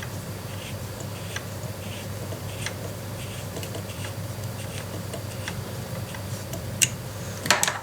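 Small handling noises from work on an airsoft rifle's pistol grip: faint repeated scrapes or ticks under a steady low hum, with a few sharper clicks near the end.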